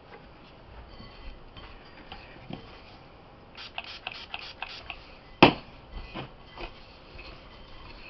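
Light ticks and taps from hands working bath fizzy mixture in a bowl, with a quick run of about six ticks past the middle and one sharp knock about five and a half seconds in.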